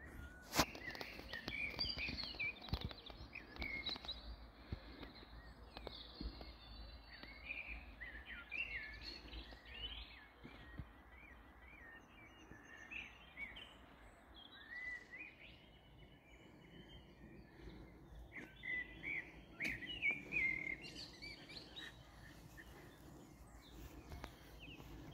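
Several songbirds singing at once, a steady run of overlapping chirps and warbling phrases. A sharp click sounds about half a second in and another near twenty seconds.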